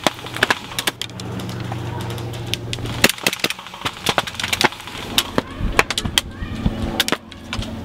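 Airsoft BBs striking a wooden pallet wall: quick, irregular sharp cracks and clicks, over a low steady hum that fades about three seconds in.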